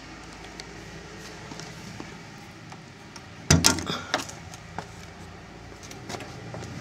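A metal side locker door on a horsebox lorry being opened, with a sharp clatter of several quick knocks about halfway through.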